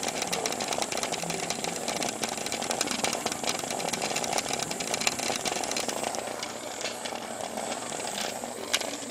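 Hexbug vibrating toy robot buzzing, its fast steady rattle of legs and body against the plastic arena floor and wall.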